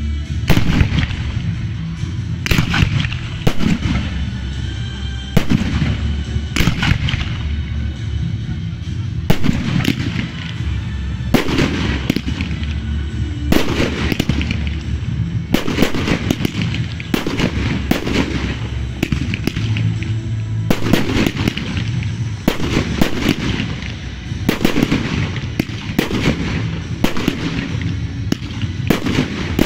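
Aerial firework shells bursting one after another: a steady run of sharp bangs, often in quick pairs, each trailing off in echo.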